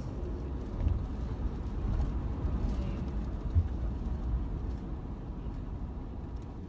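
Car moving slowly on a wet road, heard from inside the cabin: a steady low engine and tyre rumble with a few faint ticks and a brief bump about three and a half seconds in.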